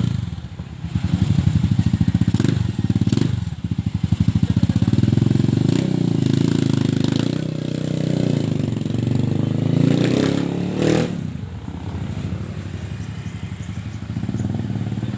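Rusi 150 motorcycle engine running at varying speed, louder and softer by turns, on a test run after its third-gear transmission overhaul.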